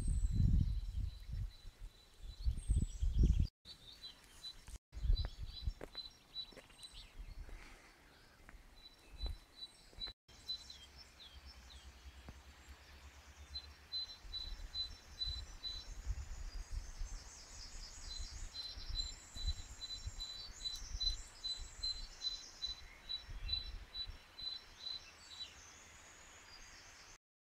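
Wild songbirds singing outdoors, with one bird repeating a short high note several times in a row, over and over. Low wind or handling rumble on the microphone, loudest in the first few seconds.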